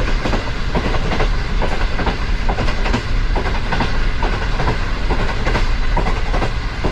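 Moving train's wheels running on the rails: a steady rumble with rapid, irregular clicking and clattering from the wheels and track.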